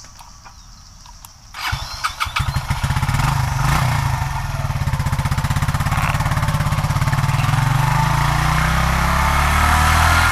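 Suzuki motorcycle engine running as the bike rides uphill, with a rapid, even firing pulse. It cuts in suddenly about a second and a half in, rises over the next second, then holds steady and loud.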